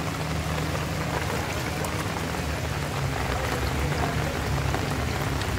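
Heavy rain falling steadily onto standing floodwater on a street, with a low steady rumble underneath.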